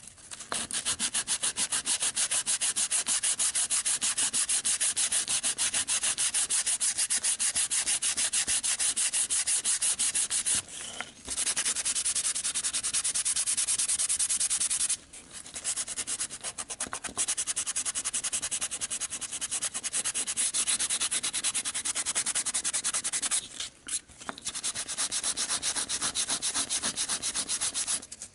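Sandpaper rubbed by hand over a hard plastic Nerf blaster shell part in rapid back-and-forth scratchy strokes, stopping briefly a few times.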